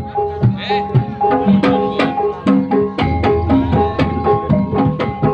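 Javanese gamelan music for ebeg: kendang hand-drum strokes in a quick, steady rhythm over ringing bronze gong-chime pots (bonang).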